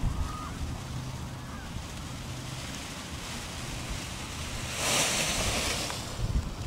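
Wind buffeting the microphone as a steady low rumble and hiss, with a louder rushing swell of hiss about five seconds in.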